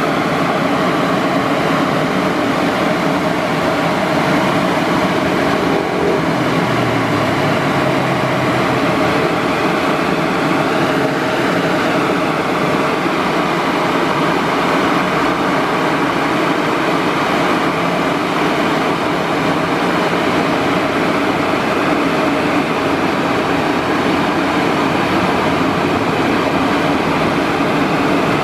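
Ceccato Aries rollover car wash running, its spinning blue brushes scrubbing a wet car: a steady, even wash of machine noise with a faint motor hum.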